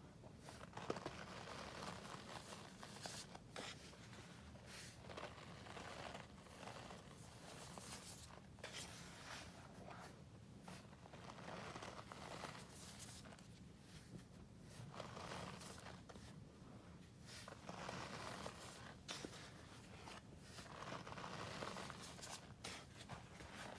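Hands squeezing and crumbling packed white powder in a plastic tub: a faint crunching, crinkly rustle that comes in swells every second or two as each handful is pressed and broken apart.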